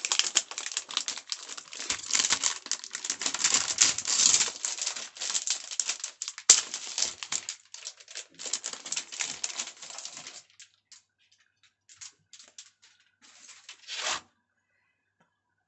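Thin clear plastic bag crinkling and rustling as Lego road plates are handled and pulled from it. The crinkling is dense for about ten seconds, then thins to a few scattered rustles with one short louder one near the end.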